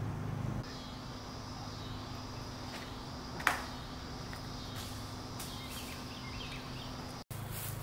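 Outdoor woodland ambience: insects buzzing steadily over a low hum, with a person's footsteps and one sharp tap about three and a half seconds in.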